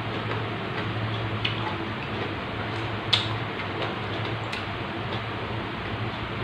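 Mouth sounds of chewing food by hand: scattered wet clicks and smacks, with one sharper click about three seconds in, over a steady low background hum.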